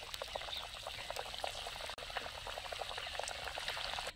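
Cabbage tikkis sizzling in hot oil in an iron kadai, with a steady dense crackle of small pops as the oil bubbles around them.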